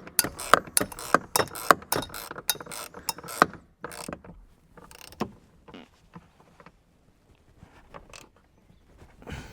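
Hand ratchet clicking in quick strokes as a T40 Torx bolt is wound in to secure a rear seatbelt reel, thinning to a few scattered clicks after about three and a half seconds.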